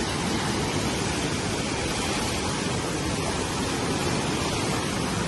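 Fast, turbulent floodwater from a flood discharge rushing past, a steady, even rush of water with no let-up.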